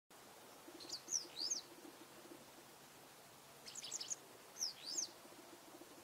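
Japanese wagtail singing: two short phrases of high, quickly rising and falling notes, the first about a second in and the second about four seconds in.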